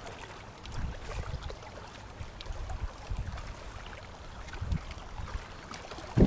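Wind rumbling on the microphone in uneven gusts.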